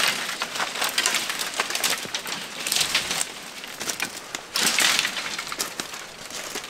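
Dry dead mimosa sticks and stems cracking and snapping as they are broken and trampled, a dense run of sharp cracks with louder bursts of snapping about three seconds in and again near five seconds in.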